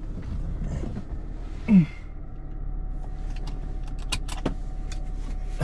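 A BMW E36 idling with a steady low hum. A short falling grunt comes about two seconds in, and a few sharp clicks come near the end.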